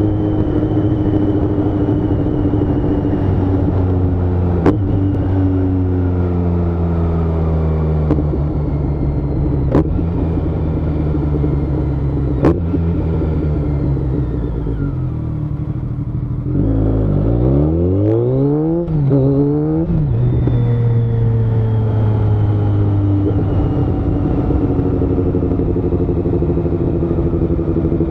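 BMW K1200S inline-four motorcycle engine heard from the rider's seat, running steadily at road speed with its pitch drifting. About two thirds of the way through it revs hard through several quick upshifts, the pitch climbing and dropping back at each shift. Three sharp clicks come earlier.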